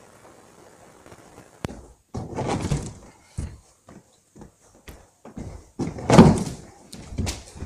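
A run of thumps and thuds from a person running on gym mats, diving over a wooden vaulting box and landing on a padded crash mat. The loudest, a heavy landing thump, comes about six seconds in.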